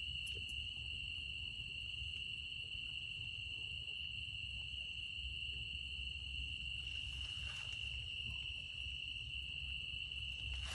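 Night insect chorus: a steady, unbroken high-pitched trill, with a low rumble underneath.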